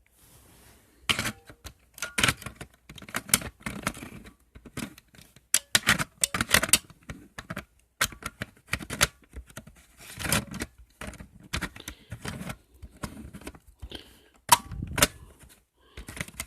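Plastic smoke detector and its sounder base being handled: irregular clicks, taps and light knocks, several a second, with the loudest cluster near the end.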